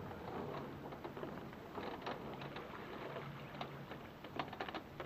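Small ripples lapping and splashing lightly against the water-level camera mount, in short uneven clicks that bunch up near the end, over a faint steady low hum.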